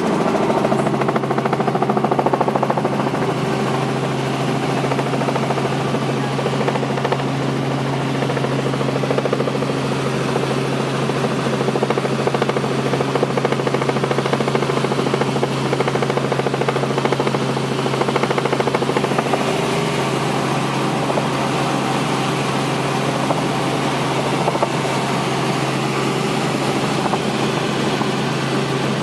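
Helicopter running steadily: a constant low hum over a dense, even mechanical noise that holds level throughout.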